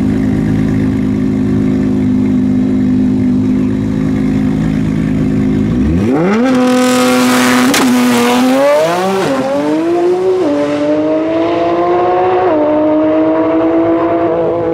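Nissan GT-R drag car's twin-turbo V6 held at steady revs on the start line, then launching about six seconds in: the engine pitch climbs sharply with a loud rush of noise, then rises and drops through three upshifts as the car pulls away down the strip.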